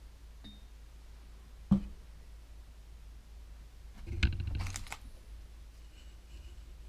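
Small handling sounds at a sculptor's workbench: a single sharp tap a little under two seconds in, then a short cluster of clicks and rustling about four seconds in, over a low steady hum.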